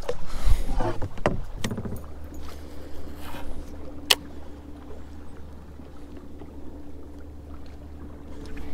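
Small kayak afloat, with scattered knocks and water noise from handling in the first couple of seconds and one sharp click about four seconds in. A steady low hum runs under the rest.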